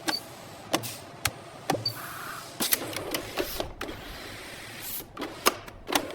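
Automated factory machinery clicking and clacking at irregular intervals over a steady hiss.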